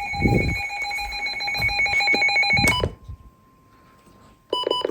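Emergency Alert System alert tones off the radio. A loud steady two-tone alert with a fast pulsing flutter cuts off about three seconds in. After a near-silent gap with only a faint steady tone, a few short beeps come near the end.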